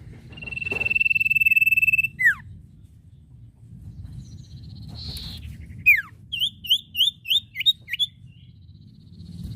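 Common iora (sirtu/cipoh) singing: a long, loud, steady whistle of about a second and a half ending in a quick falling note, then a falling note and a run of about six quick chirping notes a few seconds later. A steady low hum runs underneath.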